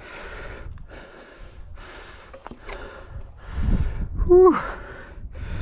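A mountain biker breathing hard while riding, with rhythmic puffs of breath about one every 0.7 seconds. About four seconds in comes a short voiced groan falling in pitch, the loudest sound, over a low rumble of the bike on the trail.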